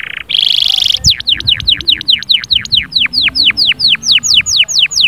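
Domestic canary singing: a fast buzzing trill, then a long run of repeated downward-sweeping whistled notes, about five a second, that speed up near the end.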